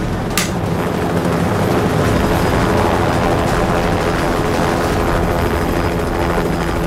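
Single-engine light aircraft's propeller engine running at high power during the take-off run, a steady drone that builds slightly in the first two seconds. A sharp click about half a second in.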